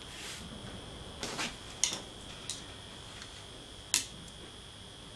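A few faint clicks and taps of a screwdriver being handled and brought against the steel chuck flange of a mini lathe headstock, the sharpest click about four seconds in. A faint steady high-pitched tone sits underneath.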